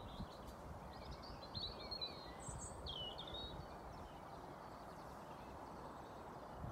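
Birds chirping: several short calls in the first three seconds and a few more near the end, over a steady low outdoor background rush.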